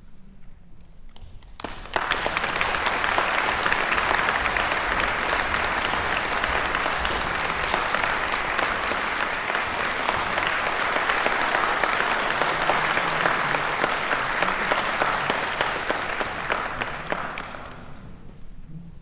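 Audience applauding in a concert hall: the clapping starts suddenly about two seconds in, holds steady, and dies away near the end.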